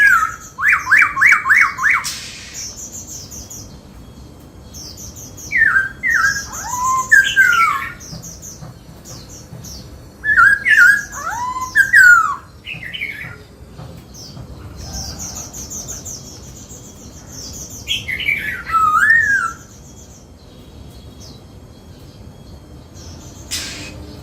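Black-throated laughingthrush singing: loud whistled phrases of quick sliding notes, coming in about four bursts a few seconds apart, the first a fast run of repeated notes. A short click near the end.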